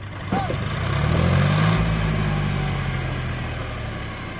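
John Deere 5204 tractor's three-cylinder diesel engine working hard under the heavy load of a sand-filled trailer. The engine note climbs from about half a second in, holds, then eases and fades toward the end. A brief rising-and-falling whistle-like tone sounds near the start.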